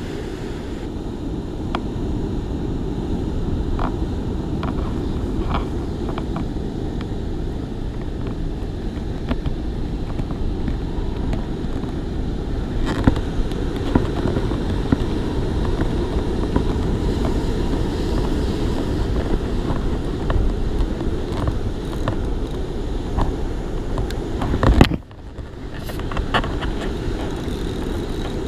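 Steady low rumble of wind on the microphone, with a few light clicks and one sharp knock followed by a brief sudden drop in level near the end.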